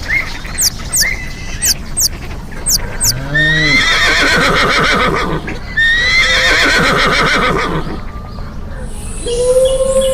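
A horse whinnying twice, two long quavering calls of about two seconds each, after a few seconds of short, high, repeated chirps. A long falling tone begins near the end.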